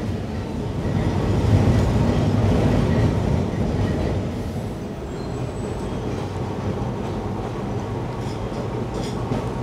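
A Kolkata electric tram running along its rails, heard from on board as a steady rumble and rattle that grows louder for a couple of seconds about a second in.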